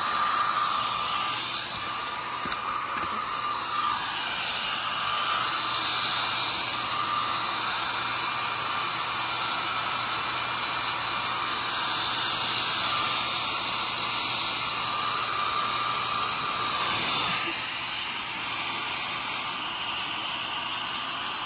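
Handheld hair dryer blowing steadily with a faint whine, drying a wet puppy's coat; it gets a little quieter and duller about seventeen seconds in.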